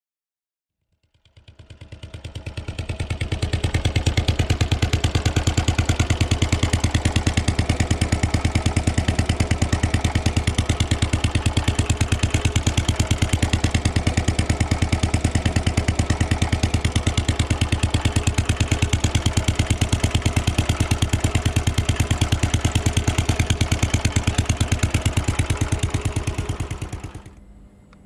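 Royal Enfield Bullet 500's single-cylinder engine running at a steady, unchanging speed, with a fast, even exhaust pulse. It fades in over the first few seconds and fades out shortly before the end.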